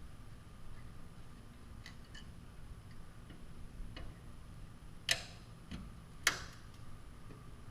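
Scattered light metallic clicks from a Phillips screwdriver working the headlight bezel screws, with two sharper clicks about five and six seconds in.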